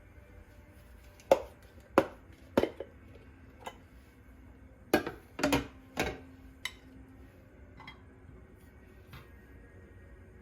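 Dishes and utensils being handled: a string of sharp clinks and knocks in the first two-thirds, one of them ringing briefly, then only faint room tone.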